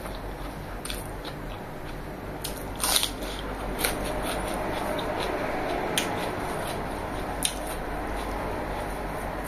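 Close-miked eating sounds: chewing and biting while eating rice and fried chicken by hand, with a few sharp clicks and crackles. The loudest click comes about three seconds in.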